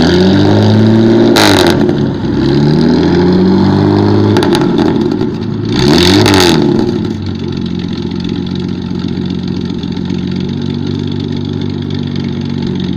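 Motorcycle engine through an aftermarket Gladiator twin-outlet exhaust being revved: the pitch rises and falls repeatedly with two sharp blips to high revs, then settles to a steady idle from about seven seconds in.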